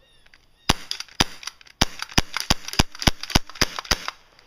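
CO2 airsoft pistol (Smith & Wesson M&P 40) firing about ten sharp pops. The first shots are spaced out, then a quicker string follows at about three or four shots a second.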